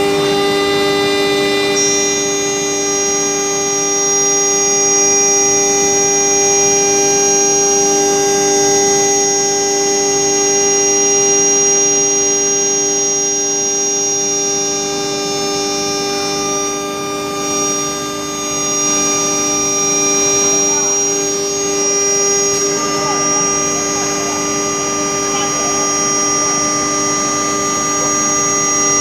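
CNC router spindle running at speed with a steady, high whine of several tones, while its bit cuts a groove pattern into a wood panel, adding a rough cutting hiss underneath.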